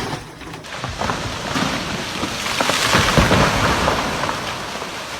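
Strong wind gusting in a steady rushing noise with low rumbling, swelling to its strongest about three seconds in and then easing off.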